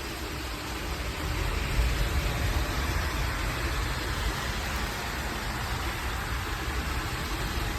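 Heavy rain pouring down in a steady hiss, with a low rumble underneath; it grows a little louder about a second and a half in.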